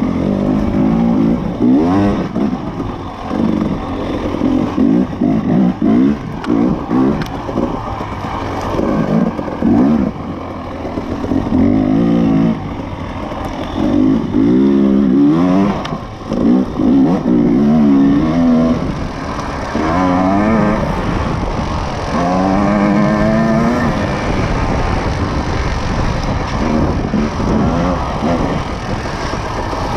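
Dirt bike engine revving hard and falling back again and again as the throttle is opened and closed, its pitch sweeping up through each burst.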